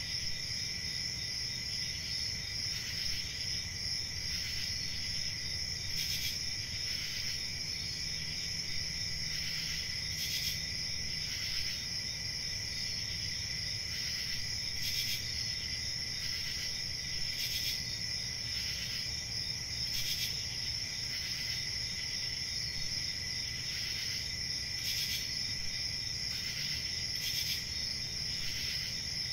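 A chorus of crickets trilling steadily in two high, unbroken tones, with a short, louder chirp standing out every one to three seconds.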